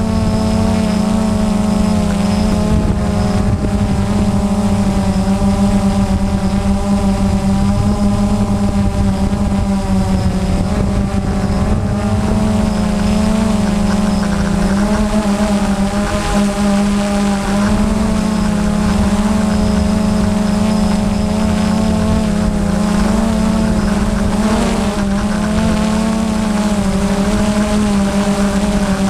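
Drone's electric motors and propellers whirring steadily, recorded by the camera on the drone: a strong hum with a stack of higher tones that waver slightly in pitch.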